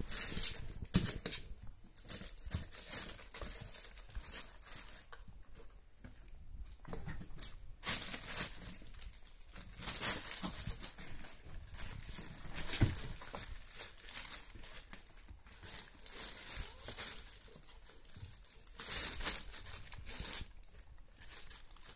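Irregular rustling and crinkling of a plastic sheet and cardboard box as kittens play in and around them, with scattered light knocks.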